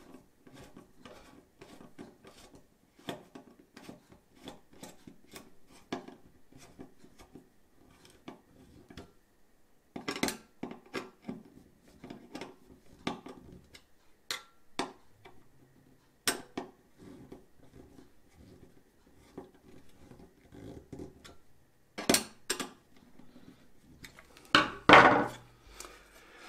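Screwdriver turning a stainless steel screw with a lock nut and washer into a steel bracket plate: a steady run of small metal clicks and scrapes, with louder knocks now and then. Near the end the metal bracket parts are handled with a loud clatter.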